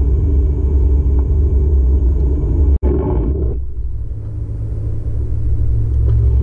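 Car cabin noise while driving: a steady low rumble of engine and tyres. It drops out for an instant about three seconds in, then comes back with less of the middle range and a steady low hum.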